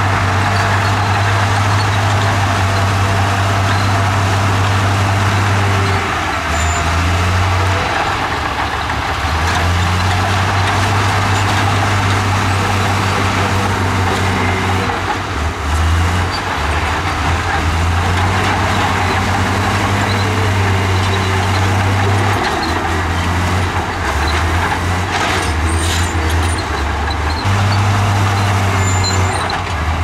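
Komatsu crawler bulldozer's diesel engine running hard, a loud low drone that dips and rises in pitch every few seconds.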